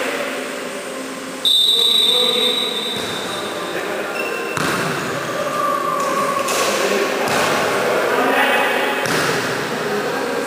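Indoor volleyball play in a sports hall. About a second and a half in, a referee's whistle blows one steady high note. Then the ball is struck several times in a rally, with players' voices around it.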